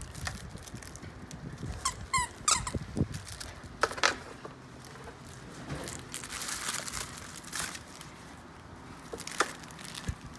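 Terrier puppies scuffling and tugging at a furry toy, with scattered clicks and knocks and a few short, high squeaks about two seconds in.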